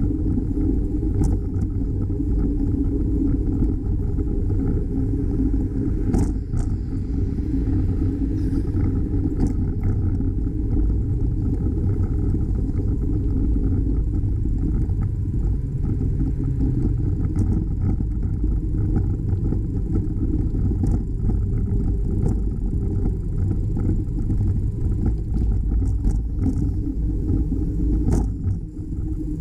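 Steady low rumble of wind and road noise from a moving bicycle, with a few faint clicks or rattles.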